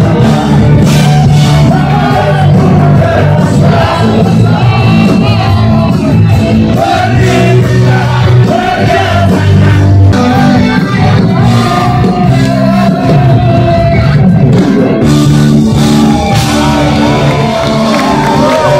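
Live rock band playing loud: a male singer belting over electric guitar and drums, with shouts mixed in.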